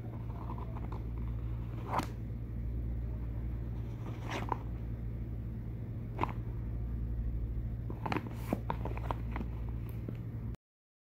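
Cardboard phone-box packaging and its insert handled by hand: scattered clicks, taps and rustles over a steady low hum. The sound cuts out completely near the end.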